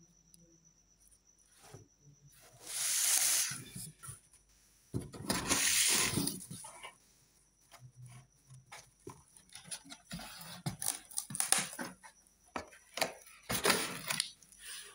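Cardboard carton flaps being pulled open and folded back by hand, in bursts of scraping and rustling, with a run of sharp clicks and knocks near the end.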